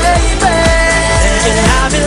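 Background pop song with a steady beat; a singing voice holds one long note through the middle.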